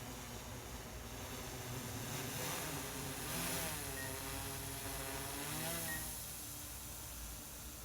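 DJI Matrice 4T drone flying on Beltec low-noise propellers: a steady whirring prop tone that swells about two seconds in, dips in pitch and climbs back as the drone moves, then fades near the end.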